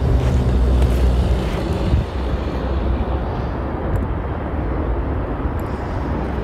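Low engine rumble of a nearby motor vehicle with a steady hum, which drops away about two seconds in, leaving a steady rushing noise.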